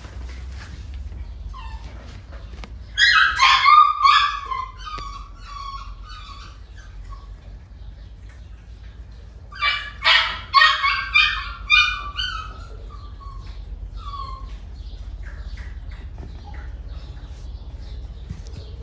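Shih Tzu puppy yipping: two bursts of quick, high-pitched yips, one about three seconds in and another around ten seconds in, with a steady low hum underneath.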